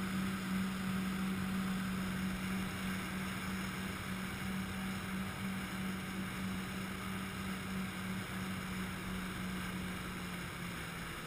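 Jet ski engine running at a steady pitch over the wash of water, its note dropping slightly near the end as it slows.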